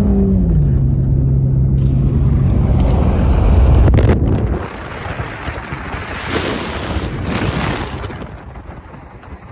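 Pickup truck driving fast on a desert dirt road: a steady engine drone heard inside the cab, its pitch dropping about half a second in. From about four and a half seconds the sound turns to wind rushing over the microphone held out of the open window, swelling a couple of times.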